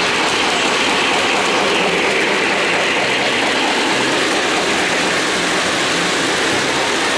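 O-gauge model freight train running past on its three-rail track: a steady noise of the locomotive and boxcars rolling along the rails.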